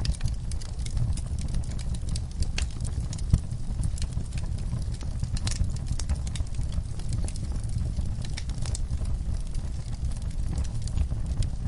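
Wood fire burning in a fireplace: a steady low rumble of the flames with frequent irregular crackles and sharp pops of the logs, one louder pop about three and a half seconds in.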